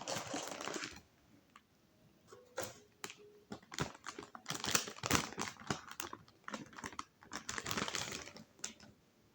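Packaging being handled as a motherboard is unpacked: bursts of rustling and crinkling with scattered clicks and taps.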